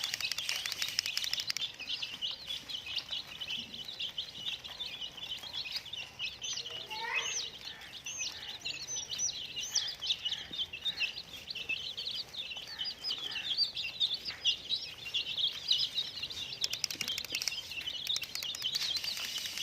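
A flock of baby chicks chirping nonstop, many short high peeps overlapping.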